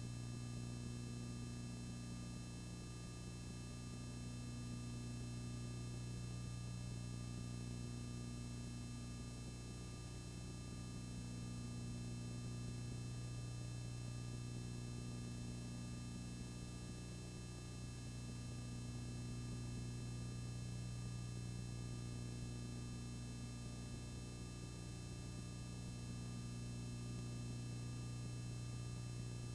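Steady low electrical hum with a faint hiss underneath, unchanging throughout; no sound from the scene itself.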